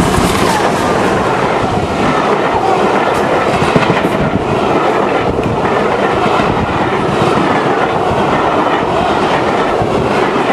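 Steam-hauled passenger train passing close by at speed. The locomotive goes by at the start, then a long rake of coaches rumbles past, their wheels clacking over the rail joints.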